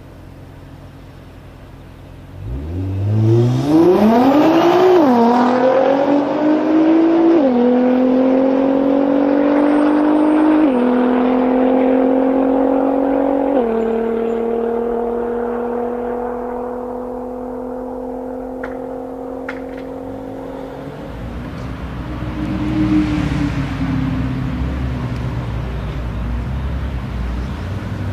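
Nissan GT-R R35's twin-turbo 3.8-litre V6, breathing through an HKS exhaust, accelerating hard from about two seconds in. Its note climbs and drops through four quick upshifts, then fades into the distance. Near the end there is a lower, deeper rumble of the car pulling away at low revs.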